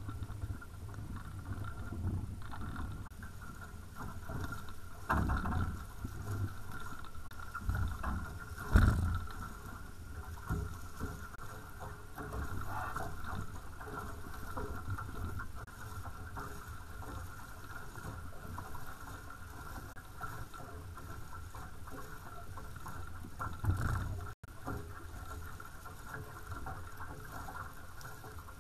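A small sailing catamaran under way at about six to seven knots: water rushing and slapping along the hulls, with a steady low rumble of wind and spray on the bow-mounted camera. A few sudden thumps of waves against the hulls, the loudest about nine seconds in.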